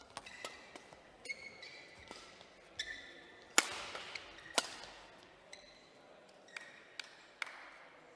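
Badminton doubles rally: sharp racket-on-shuttlecock hits, the two loudest about a second apart midway through, mixed with short squeaks of shoes on the court floor.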